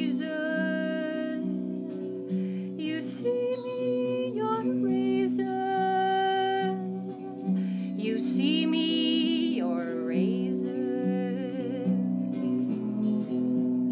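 A woman singing, held notes with vibrato, over an electric guitar played through a small Vox combo amplifier in a steady picked rhythm.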